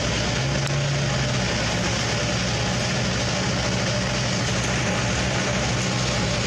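Wood chipper's engine running steadily at a constant pitch.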